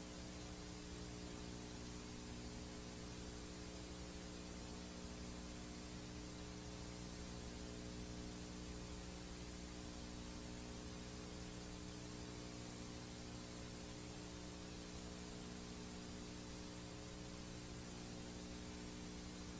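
VHS tape playback noise: a steady hiss with a low mains hum made of several steady tones beneath it.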